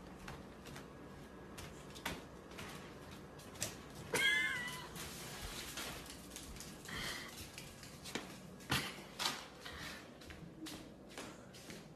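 Puppy giving a high, wavering whine about four seconds in and a fainter one near seven seconds, with scattered light clicks and taps from the floor.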